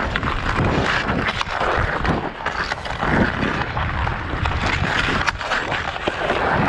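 Ice skate blades scraping and carving across rough outdoor pond ice, with sharp clicks of a hockey stick on the puck and wind rumbling on the microphone.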